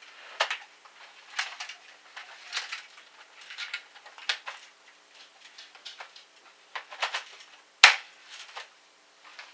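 A rifle being picked up and handled, giving a run of irregular clicks and knocks. One sharp, loud click comes near the end.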